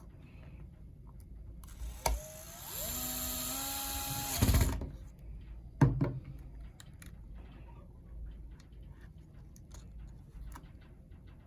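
A small electric screwdriver whirs for about two seconds, its pitch rising in steps as it spins up, between two sharp clicks. Faint ticks of small parts being handled follow.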